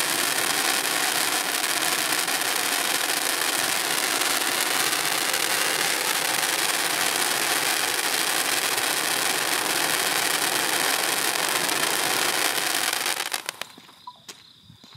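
Miracle Fireworks Home Run Hitter baseball-bat fountain spraying titanium sparks with a loud, steady hiss. About thirteen seconds in it dies away quickly as the fountain burns out, with a few faint crackles afterwards.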